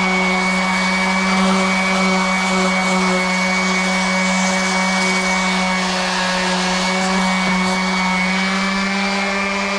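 Orbital sander with an 80-grit disc running against carved red cedar: a steady motor hum at one even pitch over the hiss of sandpaper on wood.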